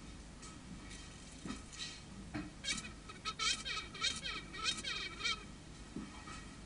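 Male tsetse fly (Glossina morsitans morsitans) buzzing with its wings during copulation, part of its copulatory courtship of the female. A run of short buzzes, each sliding up and then down in pitch, comes about three times a second for nearly three seconds in the middle.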